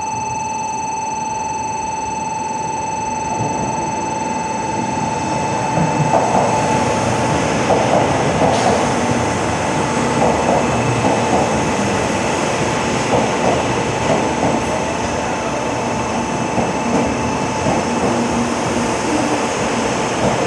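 923-series Doctor Yellow Shinkansen inspection train running along the platform. A rushing noise builds from about three seconds in, with a repeated clatter as car after car goes by. A steady high electronic tone sounds at first and stops about five seconds in.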